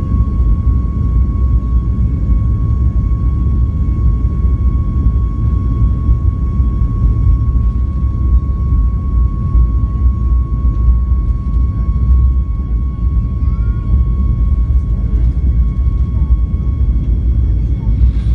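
Cabin noise of a Boeing 737 MAX 8 on its takeoff roll: a loud, steady deep rumble of the CFM LEAP-1B engines at takeoff thrust and the wheels on the runway, with a steady high engine whine over it.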